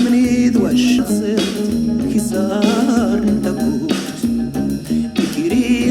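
Background pop song with guitar and bass and a singing voice.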